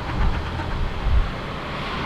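Steady rumble and hiss of vehicle noise, with wind buffeting the microphone in uneven low thumps.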